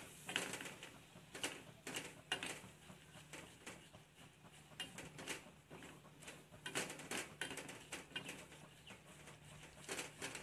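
Silicone spatula stirring and scraping a flour-and-butter roux around an aluminium pot, in short irregular strokes, with the mixture sizzling faintly over low heat.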